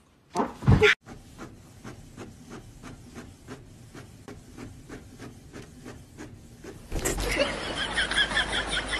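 Inkjet printer printing and feeding a sheet of paper, a steady run of regular mechanical clicks, about three or four a second. It is preceded by a short, loud burst of noise near the start. About seven seconds in it cuts to a louder, busier background with short high chirps.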